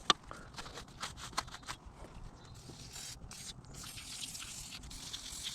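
A brush scrubbing degreaser-soaked grease off a dirt bike frame: scattered light scrapes and ticks, then from about halfway a steady bristly hiss broken by two short pauses.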